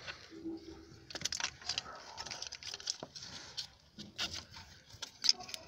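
Scattered small clicks and scrapes as a flat screwdriver and fingers release the plastic clip on a throttle-body sensor connector of a TDI engine and pull the plug off.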